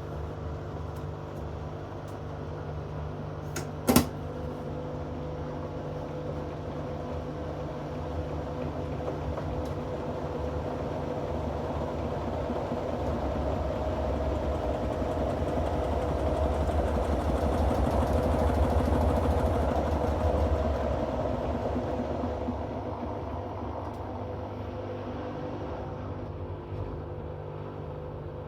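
Hoover inverter washing machine running mid-cycle: a steady motor hum that swells over about twelve seconds and then fades back, with a single sharp click about four seconds in.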